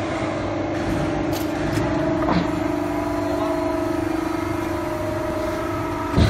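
Hydraulic pump motor of a QC12K sheet-metal hydraulic shearing machine running with a steady hum. A sharp knock comes near the end.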